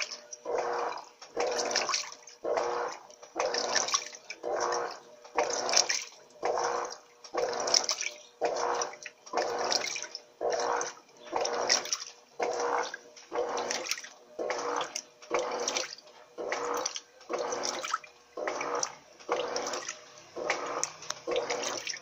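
Electrolux LTE 12 top-load washing machine's agitator churning a load of microfibre blankets in water. The water swishes in an even rhythm, a little more than one stroke a second, over a steady motor hum.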